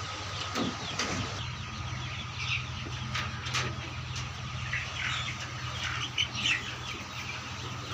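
A flock of young Vanashree chicks peeping and chirping in short, scattered calls over a steady low hum, with a few knocks from handling of a plastic feeder.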